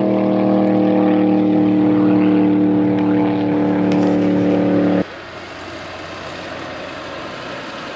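A land-speed race car's engine running hard at high, steady revs, its pitch sinking slowly. It cuts off abruptly about five seconds in, leaving a quieter rushing wind noise.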